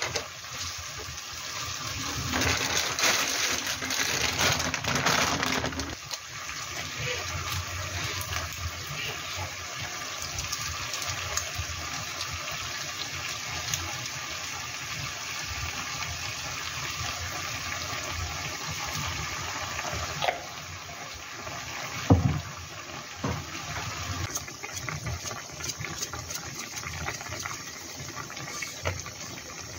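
Tteokbokki simmering in its sauce in a nonstick wok, a steady bubbling hiss that is louder for a few seconds near the start. A couple of sharp knocks come about two-thirds of the way through.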